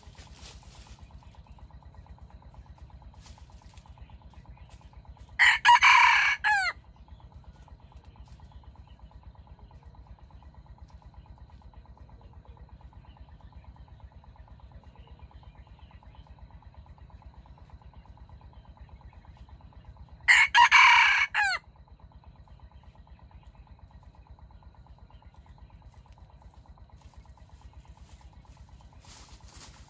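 Red junglefowl cock crowing twice, about fifteen seconds apart, each crow loud and short, about a second long, dropping in pitch at the end.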